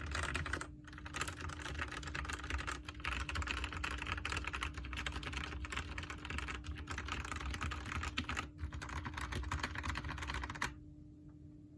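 Fast, continuous typing on an Aula F-2067 mechanical keyboard modded with lubed Outemu brown tactile switches, lubed stock stabilizers and PE foam under the hot-swap PCB, fitted with Velocifire keycaps. The keystrokes run in a dense stream with two brief pauses and stop abruptly shortly before the end.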